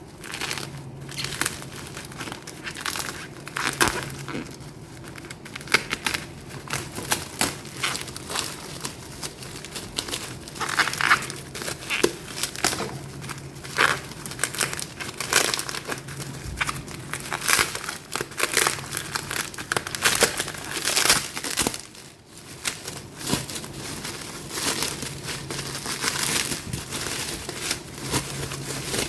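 Packaging being handled and opened by hand, crinkling and rustling with many sharp crackles and the occasional tearing sound.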